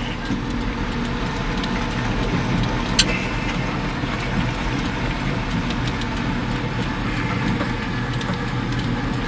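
Steady engine and road running noise heard inside the steering cab of a heavy-haulage bridge-beam jinker on the move, with one sharp click about three seconds in.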